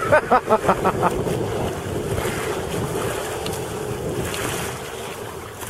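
Sea-Doo GTi jetski engine running steadily out on the water as the rider carves turns, with wind buffeting the microphone; the engine tone fades after about four and a half seconds. A quick string of about six short high-pitched yelps in the first second.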